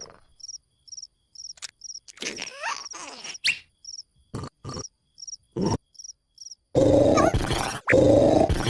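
Cricket chirping, short high chirps repeating about twice a second, with a few brief cartoon sound effects between them. Near the end a much louder, noisy sound cuts in and drowns it out.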